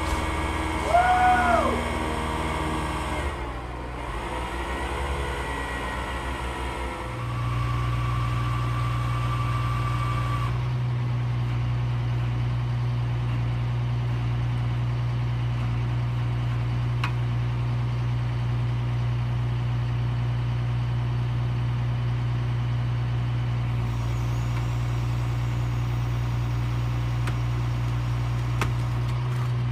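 Bucket truck engine running to power the Hi-Ranger boom's hydraulics: a steady low hum that gets louder and stronger about seven seconds in, with a thin high whine for a few seconds after that. A few short squeals rising and falling in pitch come near the start.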